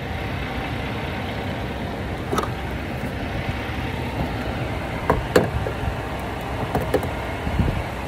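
Steady whirring hum of cooling fans while a Tesla supercharges in hot weather, with a few short clicks and taps, the loudest about five seconds in.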